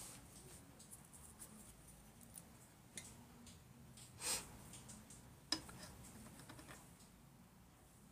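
Faint handling noises at a drawing desk: scattered small clicks, a short rustle about four seconds in and a sharper click about a second later.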